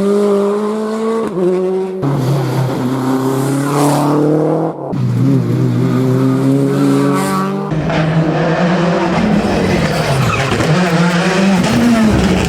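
Rally car engines at high revs, in several short clips cut one after another, the pitch held high or climbing slowly. From about eight seconds in, the revs rise and fall quickly over rougher tyre noise, as a car is driven hard through corners.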